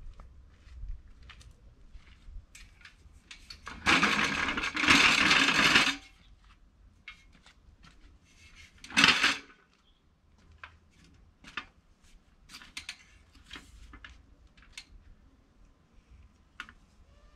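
Aerosol insecticide spray hissing in a long burst of about two seconds, then a shorter burst a few seconds later, sprayed at a wasp nest. Light scattered clicks and knocks between the bursts.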